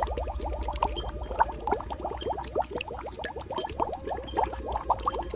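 Bubbling cauldron sound effect: thick liquid boiling, many bubbles popping in quick succession over a steady low rumble.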